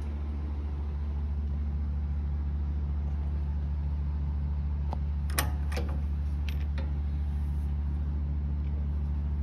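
Steady low hum of a running motor or engine, with a few light clicks and knocks about halfway through.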